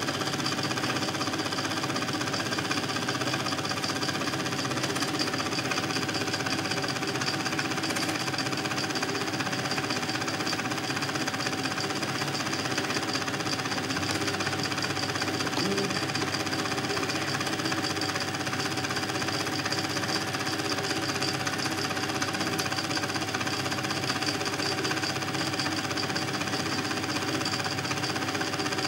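Home-movie film projector running: a steady, fast mechanical rattle with constant tones over it.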